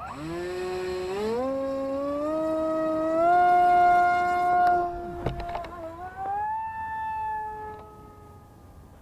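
Brushless electric motor and propeller of an RC model Spitfire whining as throttle comes up, the pitch rising in steps to its loudest about three to five seconds in. It dips with a short low thump around five seconds in, rises again, then fades as the plane flies away.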